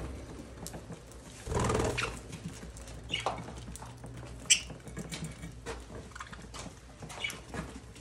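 Budgerigars feeding: many small pecks and seed-cracking clicks, with short high chirps. There is a louder rustling flurry about one and a half seconds in and a single sharp tap a little past the middle.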